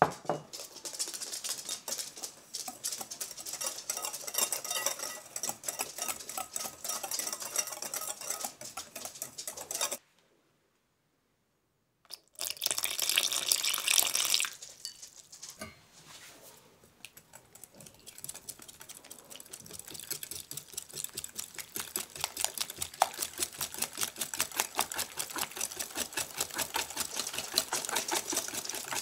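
Crepe batter being made in a glass bowl. First a wire whisk works flour through a sieve with a fast scratchy rustle. After a short gap, milk and egg are poured into the flour for a couple of seconds, and then the whisk beats the batter against the glass in a quick, even run of clicks.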